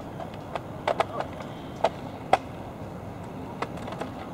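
Sharp clicks and knocks, about seven at irregular intervals and the loudest a little past two seconds in, from the aluminium frame parts of a Bergans Ally folding canoe being fitted and clipped into place. Under them runs a steady low background noise.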